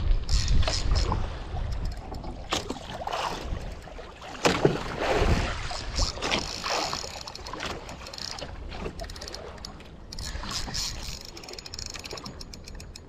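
Water lapping and splashing against a small boat's hull, with wind buffeting the microphone. Occasional knocks, about two and a half, four and a half and six seconds in.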